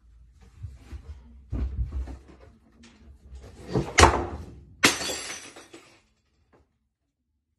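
A husky rummaging in a kitchen wall cabinet: rustling and knocking, then a package falls with a loud thud about four seconds in and a second crash a second later, followed by a short scattering hiss as brown granules spill across the tiled floor.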